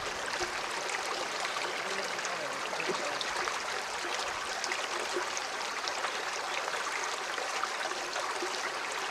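A mountain stream flowing over rocks, a steady rushing burble.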